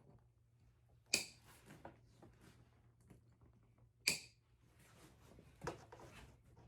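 Three sharp snaps, about a second, four seconds and five and a half seconds in, with faint rustling between, as an upholstered car seat cover is worked off its seat frame.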